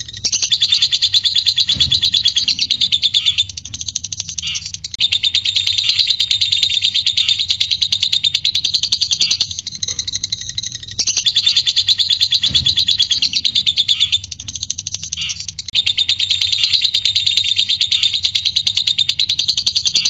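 Lovebird singing its long 'ngekek' chatter: a fast, high, rattling trill held for several seconds at a time. It comes in four long bouts broken by short pauses.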